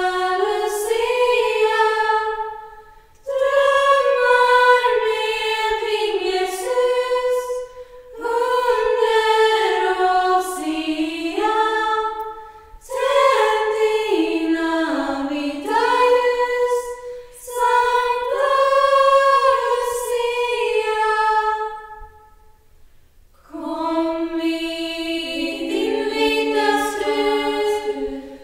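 Girls' Lucia choir singing a cappella in harmony, phrase by phrase with short breaths between, the longest pause about two-thirds of the way through.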